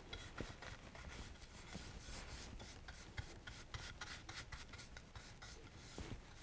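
Faint, quick, irregular strokes of a round natural-bristle paint brush spreading a thin metallic glaze across a painted moulding, the bristles brushing over the surface.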